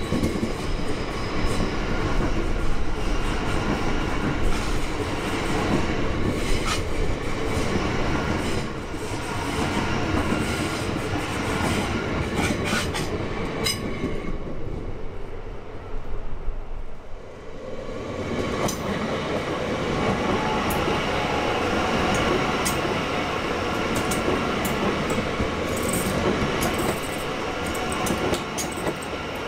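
High Capacity Metro Train electric multiple units passing, with a steady running noise of wheels on rail and scattered sharp clicks. The sound dips briefly about halfway through, then a train passes close by.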